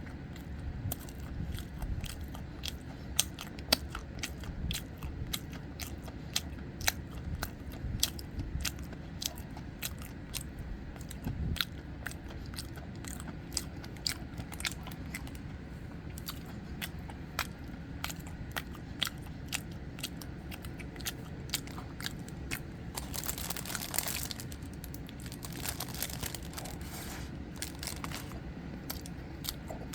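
Close-miked chewing and biting of soboro red bean bread: crumbly crunches and many sharp wet mouth clicks. Twice near the end a brief rustling hiss comes in.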